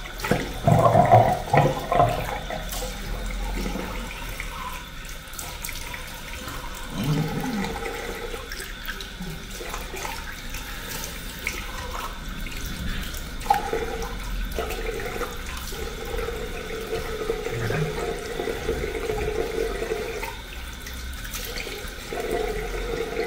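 Cold water running from a tap into a bathroom sink while a man splashes it onto his face to rinse; the splashing is loudest in the first couple of seconds.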